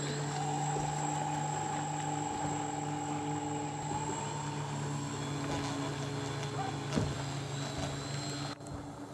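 Twin brushless electric motors and propellers of a HobbyKing Catalina RC seaplane running steadily as it taxis on the water, a high whine that rises slightly in pitch about four seconds in. A single sharp knock near the end.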